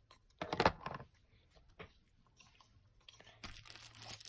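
Homemade slime being squeezed and worked by hand: a loud wet squish about half a second in, then from about three and a half seconds a steady run of crackling and crinkling.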